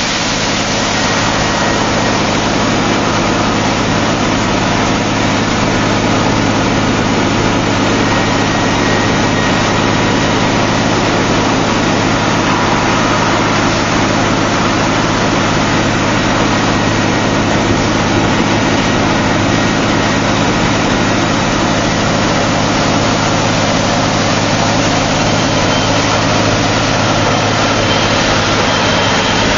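Ingersoll-Rand DM45 blast hole drill running steadily: its Cummins N14 diesel engine and air compressor make a loud, even noise over a steady low hum.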